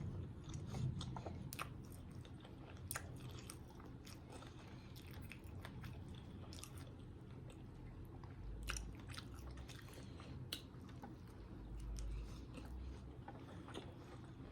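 Close-miked chewing and biting of a sausage, egg and cheese biscuit: soft mouth noises with scattered small wet clicks, faint throughout.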